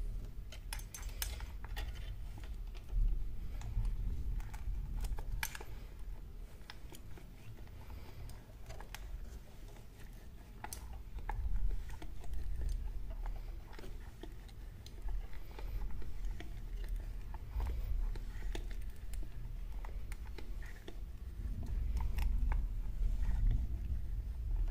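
Irregular small metallic clicks and scrapes from a hand-cranked homemade wire bender as steel wire is wound into a coil spring around its rod, over a steady low rumble.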